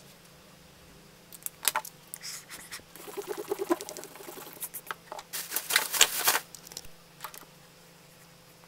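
Eraser scrubbing back and forth on sketchbook paper in quick strokes, rubbing out pencil lines from an inked drawing, with a few taps and paper rustles. The rubbing comes in bursts and is loudest around five to six seconds in.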